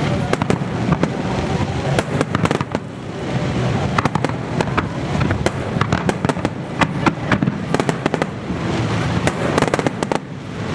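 Aerial fireworks bursting in quick succession: a dense run of bangs and crackles, many a second, easing briefly twice.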